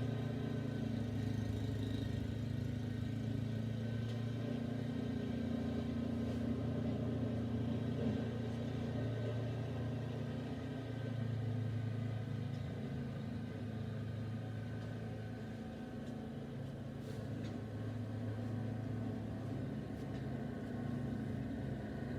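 An engine running steadily, a low hum that swells and eases slightly.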